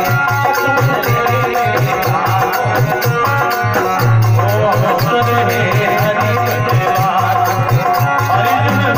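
Rajasthani devotional folk music: a harmonium holds a melody over a dholak hand drum that beats a quick, steady rhythm.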